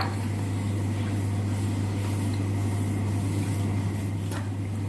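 Steady low hum with faint room noise, and a soft click right at the start.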